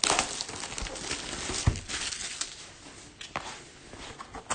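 Crinkling and tearing of plastic trading-card pack wrappers being ripped open by hand, with irregular crackles and a soft knock about one and a half seconds in.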